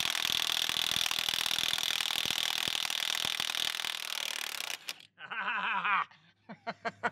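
Milwaukee M18 FUEL 2867-20 1-inch cordless impact wrench hammering continuously on a rusted 40-year-old pivot nut for about five seconds. It stops once the nut has broken loose.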